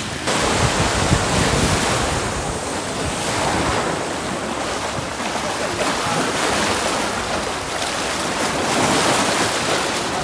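Small sea waves washing and breaking against a rocky shoreline, a steady rush that swells and eases, with wind buffeting the microphone.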